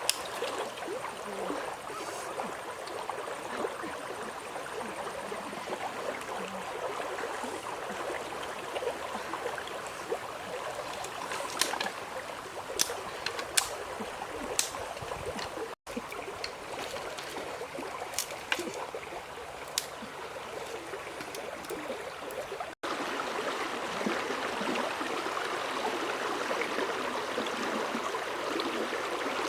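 Stream water flowing and trickling steadily, with a few sharp clicks in the middle. The sound cuts out for an instant twice.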